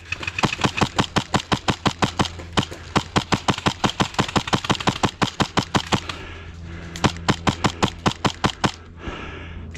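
Airsoft gun firing a rapid string of shots, about eight a second, for several seconds, then a shorter burst after a brief pause.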